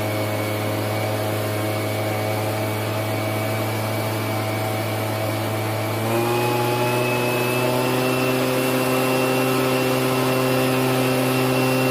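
Leaf blower running steadily while blowing loose plant debris off the rows. About six seconds in its speed steps up to a higher, slightly louder hum.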